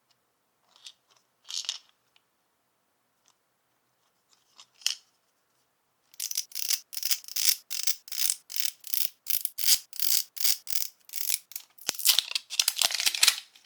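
A few faint scratches, then from about six seconds in a run of sharp scratchy strokes, about two or three a second, that grows denser near the end: hands scratching at and tearing open a toy's packaging.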